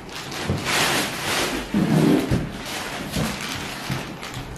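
Rustling and scraping of the TV's foam wrap and cardboard box as a large flat-screen TV is lifted out, with small knocks. A short, loud, low voice sound comes about two seconds in.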